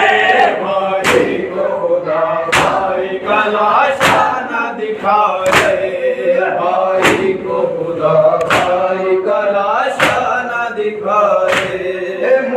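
Men chanting a Shia mourning noha together, with a sharp unison chest-beat (matam) landing about every second and a half in time with the lament.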